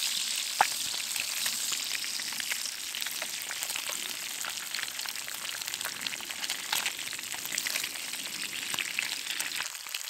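Fish fillets frying in hot oil in a pan over a campfire: a steady sizzling hiss full of small pops and crackles, with one sharp click about half a second in.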